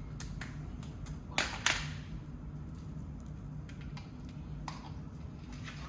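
Two sharp metallic clinks about a quarter second apart, with a few lighter ticks, over a steady low hum: metal hand tools or parts being handled during car repair work.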